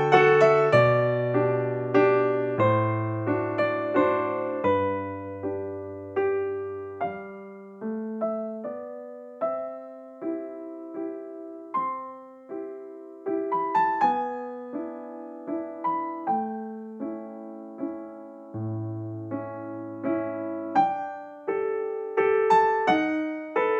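Background piano music: a slow melody of struck notes that fade, over low bass notes.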